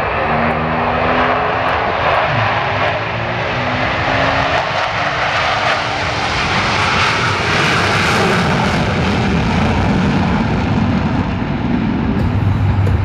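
Four Blue Angels F/A-18 Super Hornets taking off in formation, their twin turbofan jet engines giving a steady, loud roar. The hiss grows sharpest around the middle as the jets lift off and pass.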